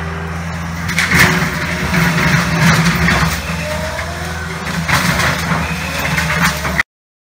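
A Caterpillar compact track loader's diesel engine runs steadily while its front-mounted rotary brush cutter spins. From about a second in, crackling and snapping come in bursts as the cutter chews into brush and small trees. The sound cuts off suddenly near the end.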